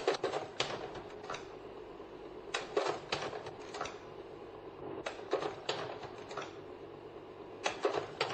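Sharp clicks or knocks in small groups of three or four, about three a second, over a steady hiss.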